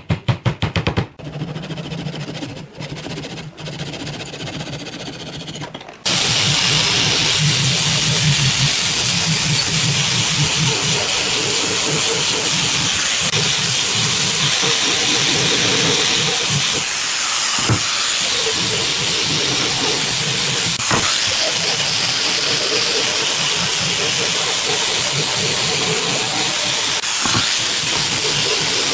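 An angle grinder with a sanding disc running steadily as it sands down pine boards; it starts abruptly about six seconds in, after a run of quick knocks at the start.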